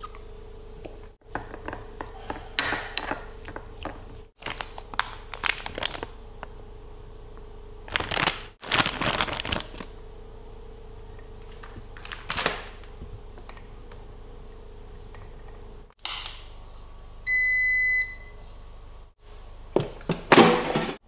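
Short bursts of kitchen handling sounds: rustles, taps and clinks of hands and food against ceramic dishes. Later a steady electronic beep from an air fryer's control panel is held about a second, followed by a clatter of knocks as the air fryer's basket drawer is handled.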